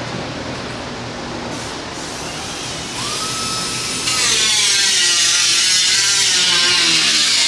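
Power tool running: a whine rises and holds steady about three seconds in, then a much louder harsh, high hiss joins it, with a wavering whine underneath.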